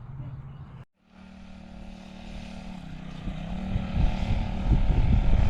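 Small 40cc four-stroke mini bike engine running with a steady buzzing hum. The sound cuts out briefly about a second in, and the engine grows louder toward the end.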